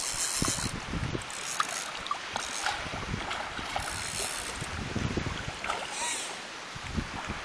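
Wind gusting on the microphone over small water splashes and droplets as a hooked permit thrashes at the surface, with a brief splash about four seconds in.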